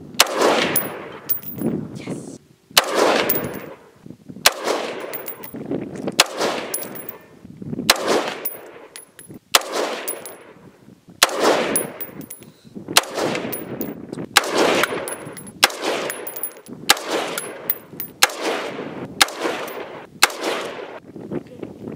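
Bushmaster XM15-E2S AR-15 rifle firing 5.56 mm rounds in slow aimed semi-automatic shots, about a dozen at roughly one every one and a half seconds. Each shot is a sharp crack trailed by a long echo.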